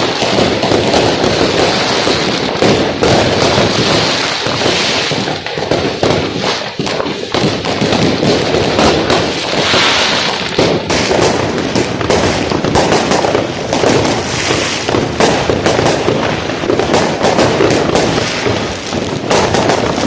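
Fireworks and firecrackers going off densely, many overlapping bangs and crackles with no pause.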